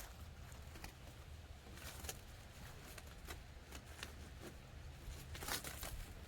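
Faint rustling and light clicks of a plastic headlight assembly and its parts being handled, with a few sharper clicks about two seconds in and a short cluster near the end, over a steady low rumble.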